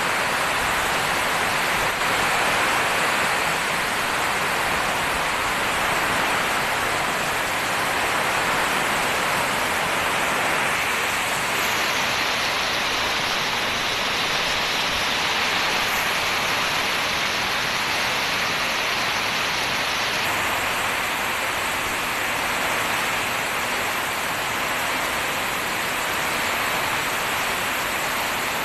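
Heavy rain pouring down steadily, a dense, even hiss. Its tone shifts slightly for several seconds in the middle.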